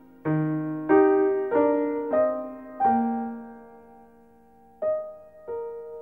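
Piano music: five notes or chords struck about half a second apart, then a pause and two more notes near the end, each ringing and slowly fading.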